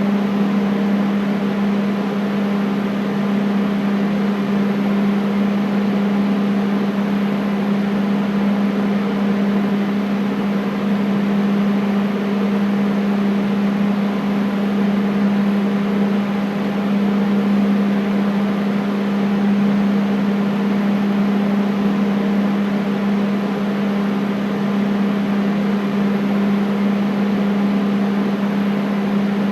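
Air conditioner running steadily: an even rush of moving air over a constant low hum.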